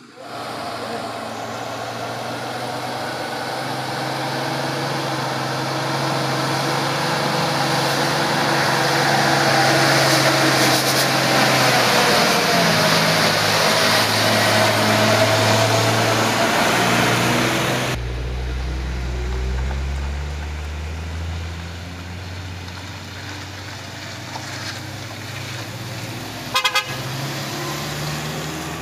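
Mitsubishi box truck's diesel engine labouring up a steep incline, growing louder as it approaches and passes close by. After that a passing car's engine gives a deeper hum, and a horn gives two short toots near the end.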